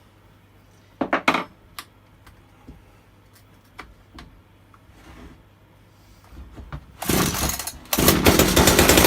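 Echo CS3400 top-handle chainsaw's small two-stroke engine being pull-started: a short pull about a second in, then about seven seconds in it is cranked again and fires, running loudly on a priming dose of petrol down the cylinder.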